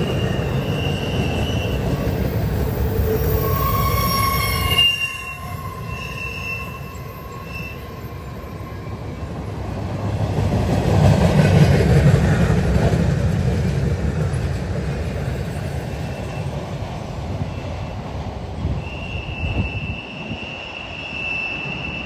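Empty intermodal well cars of a long freight train rolling past, a steady rumble of steel wheels on rail. High, thin wheel squeals ring out over it in the first few seconds and again near the end.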